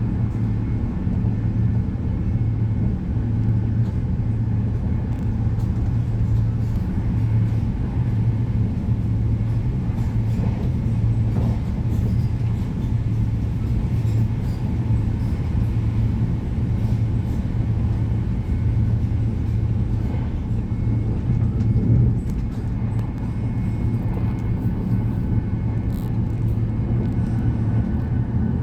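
Passenger train running, heard from inside the carriage: a steady low rumble of wheels on the rails, with faint scattered ticks and rattles.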